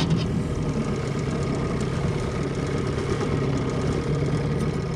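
Small boat's outboard motor idling, a steady low drone.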